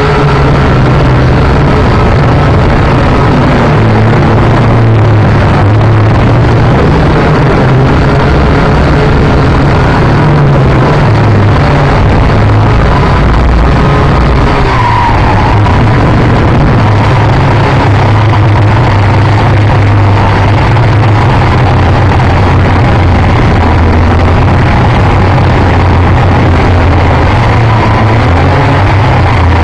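Radio-controlled quadcopter's electric motors and propellers droning loudly on the onboard camera's microphone, the pitch drifting up and down as the throttle changes.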